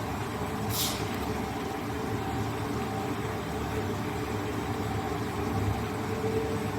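DC electric arc furnace running: a steady low rumble with a faint electrical hum. There is a brief high hiss about a second in.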